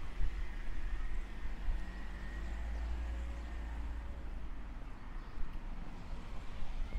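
Roadside street ambience: a car driving away and a steady low rumble of traffic.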